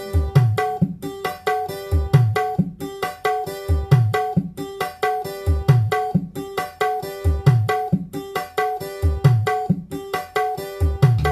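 Music played through a pair of FEST active PA speakers: deep hand-drum strokes that drop in pitch, in a steady rhythm over plucked strings.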